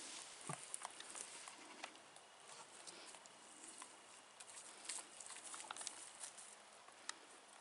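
Goats moving about, their hooves making faint, scattered taps and scuffs over a quiet background.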